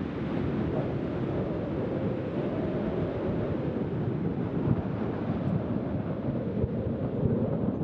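Wind buffeting the microphone in a dense low rumble, with Atlantic surf breaking on the rocks beneath it.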